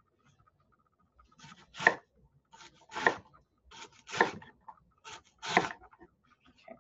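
Chef's knife chopping onion on a wooden cutting board: about eight sharp knocks in loose pairs, starting about a second in.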